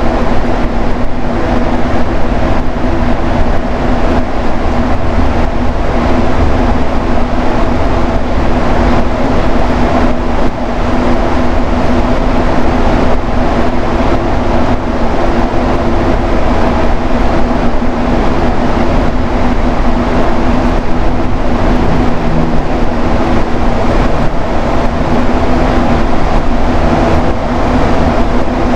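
Rubber-tyred Montreal metro train running at speed, a loud steady rumble of tyres and motors with a constant hum.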